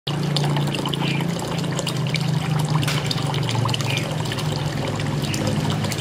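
Water from a small tabletop rock waterfall pouring in a thin stream into the basin below: a steady splashing trickle, with a low steady hum underneath.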